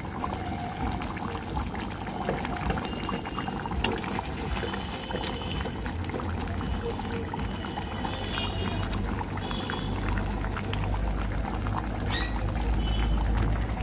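Mustard fish curry gravy simmering and bubbling in a metal kadai on a gas flame, with a flat spatula moving through it and scraping the pan from about halfway on.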